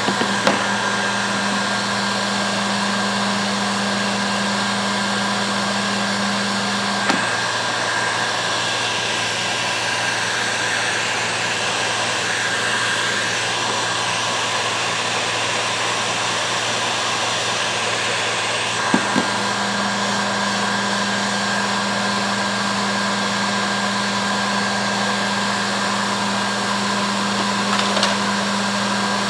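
Heat gun blowing steadily while shrinking heat shrink tubing onto plier handles. A low hum under it cuts out with a click about seven seconds in and comes back with another click about twelve seconds later.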